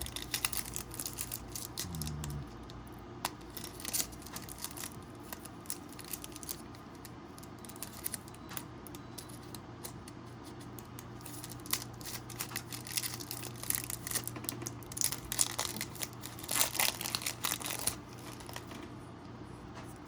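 Plastic packaging crinkling and rustling with small irregular clicks and crackles as the new SSD and its parts are handled, busiest a little past the middle, over a faint steady hum.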